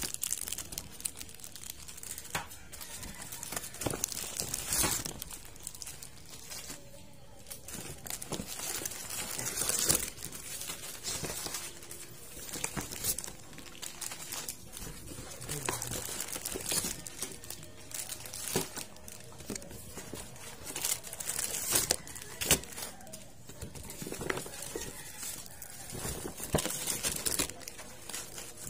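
Paper bag and plastic-wrapped multipacks of fun-size candy bars rustling and crinkling as they are handled and lifted out, with irregular crackles throughout.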